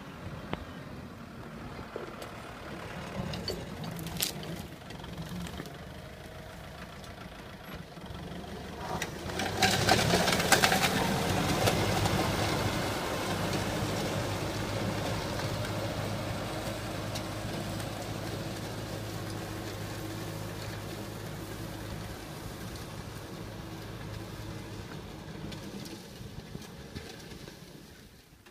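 Farm tractor's diesel engine running steadily while pulling a disc tillage implement through the soil. It grows loud as the tractor comes close about ten seconds in, then fades slowly as it moves away.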